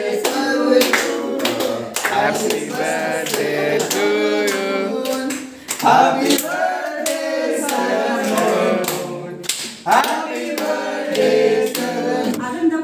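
A small group of people singing a birthday song together, clapping along in time, with short breaks between lines.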